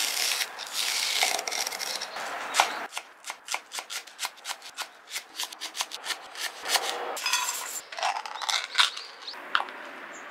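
A kitchen knife cutting a green onion on a wooden cutting board. First comes a scraping slice along the stalk, then about three seconds in a fast run of sharp knife taps on the board, about five a second, with a few looser strokes near the end.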